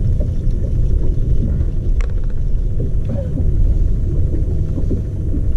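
Low, steady rumble of wind buffeting the boat-mounted camera's microphone, under a faint steady hum, with one sharp click about two seconds in.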